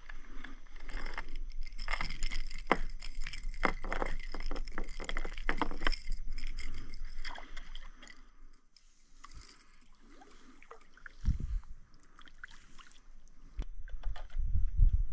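A hooked tucunaré (peacock bass) thrashing and splashing at the surface beside the kayak, a quick run of sharp splashes over the first six or seven seconds. It then goes quiet, with a single low thump about eleven seconds in.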